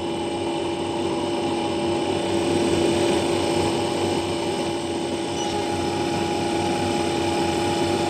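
Freezer cold room's refrigeration compressor running, a steady hum holding one even tone over a constant mechanical noise.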